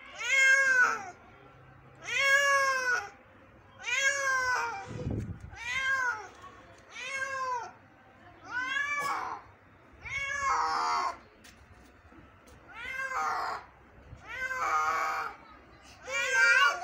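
An injured cat meowing over and over: about ten long, drawn-out meows, each rising then falling in pitch, coming one every second and a half to two seconds.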